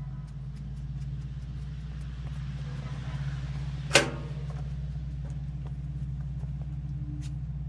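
Hand trigger spray bottle squirting oil in short, quick hisses, several a second, over a steady low hum. A single sharp knock about four seconds in is the loudest sound.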